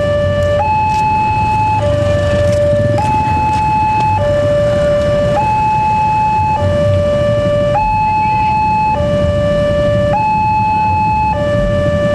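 Railway level-crossing warning alarm: an electronic two-tone signal that steps back and forth between a lower and a higher tone, each held for about a second. It sounds while the barrier is down, warning that a train is coming.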